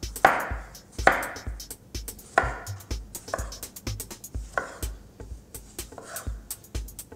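A kitchen knife slicing tomatoes and other vegetables into rounds on a wooden cutting board: about six separate cuts, each knocking on the board, roughly one a second. Background music with a steady beat plays underneath.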